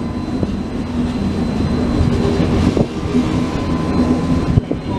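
Passenger coaches of a Flixtrain rolling past close by, the wheels running on the rails in a steady rumble with occasional clicks.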